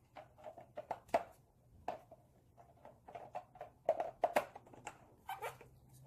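Hamster exercise ball with a hamster inside, clicking and knocking irregularly as it is handled and starts to roll, several clicks a second with a few sharper knocks.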